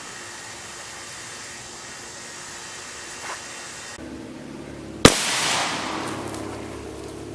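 A single sharp shot from a 12 gauge big-bore air rifle about five seconds in, followed by a rush of sound that dies away over a second or so.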